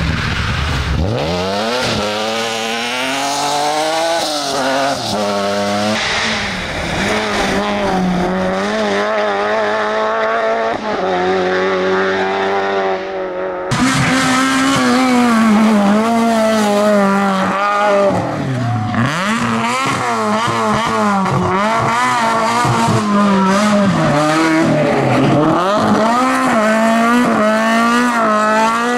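Rally car engines revving hard as the cars pass through corners, the engine note rising and dropping with throttle and gear changes. One car is heard in the first half, then, after a sudden cut, another rally car.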